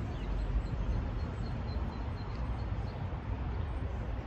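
Outdoor background: a steady low rumble, with a short run of faint, high-pitched chirps about a second and a half in.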